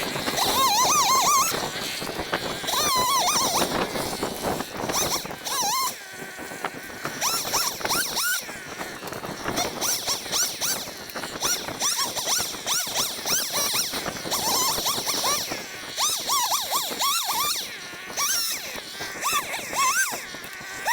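Stihl MS 180 two-stroke chainsaw revving and cutting through fallen hemlock and oak, played back sped up, so the engine's pitch rises and falls high and fast.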